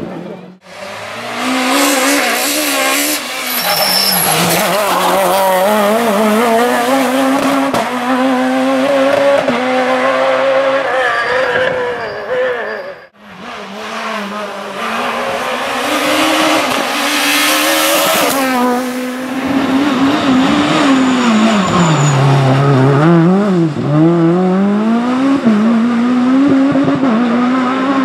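Rally cars driven hard on a special stage, engines revving high and falling back through gear changes and braking, heard in two passes with a brief break at about 13 s.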